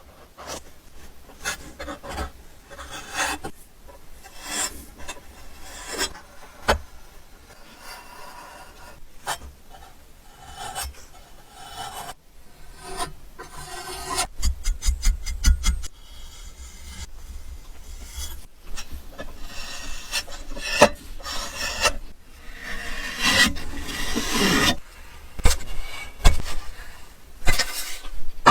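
Hand sanding or filing on a workpiece: irregular scraping and rubbing strokes with scattered sharp clicks, a quick run of ticks about halfway, and heavier strokes near the end.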